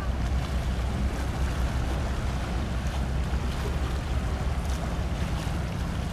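Steady low rumble and rushing, splashing water as a Reimei-class Coast Guard patrol vessel passes close under way, with wind buffeting the microphone.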